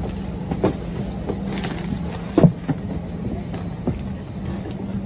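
Steady hum of the Airbus A320 cabin's air system while it is parked at the gate, with scattered knocks and bumps from carry-on luggage and footsteps in the aisle. The loudest bump comes about two and a half seconds in.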